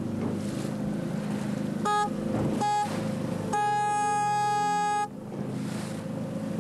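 Boat horn sounding three blasts, two short and then one long of about a second and a half, over a motorboat's engine running steadily.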